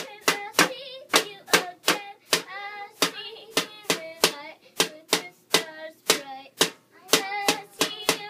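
A child beats drums with sticks in a steady, even rhythm of about three sharp strikes a second, singing along between the hits.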